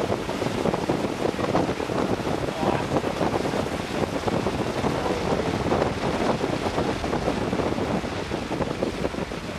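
Wind buffeting a camera microphone held at the open window of a moving car: a dense, fluttering rush of noise with no distinct events.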